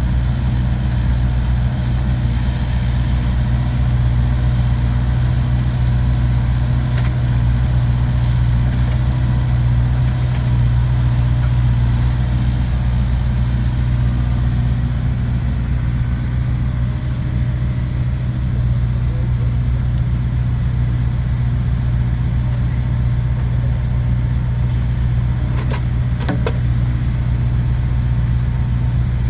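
An engine idling steadily with an even low drone. A couple of faint knocks come near the end.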